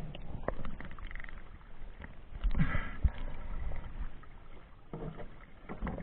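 Faint, steady water noise with a few scattered soft knocks and clicks.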